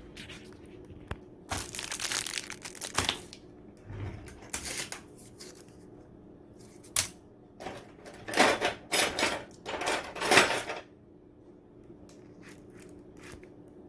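Crinkling and rustling of takeout packaging being handled, in several bursts that are loudest near the end, with a sharp click about seven seconds in.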